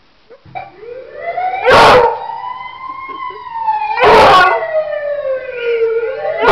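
A beagle howls in loud, short outbursts about every two and a half seconds, three times, over an ambulance siren wailing slowly up and then down.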